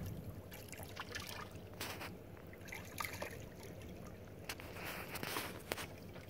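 Faint, irregular small splashes and trickling water: spawning herring breaking and slapping the surface in the shallows against the kelp.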